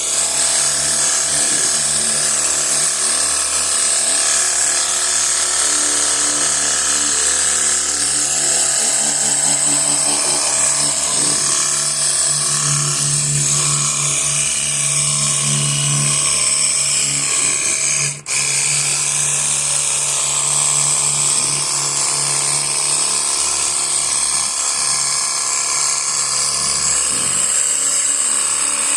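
Cordless handheld pressure washer running and spraying: its small electric motor and pump whine and hum steadily under the hiss of the water jet. It cuts out for an instant about two-thirds of the way through, then runs on.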